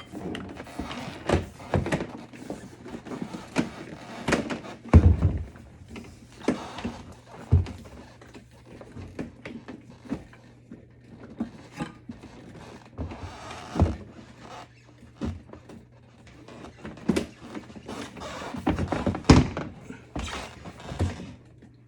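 Irregular knocks, clicks and light clatter of a GE dishwasher's door and control panel parts being handled and fitted, with a heavier thump about five seconds in.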